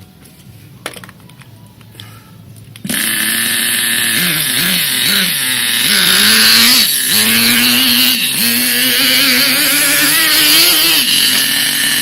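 Motor of a three-wheeled radio-controlled car starting up about three seconds in and running hard, a buzzing whine whose pitch dips and rises several times as the throttle is worked.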